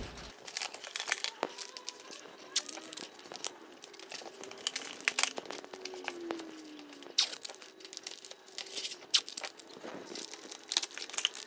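Plastic cling wrap crinkling and crackling as it is handled and stretched over a plastic tub, with sharp crackles throughout, and blue painter's tape pulled from its roll and pressed onto the wrap near the end.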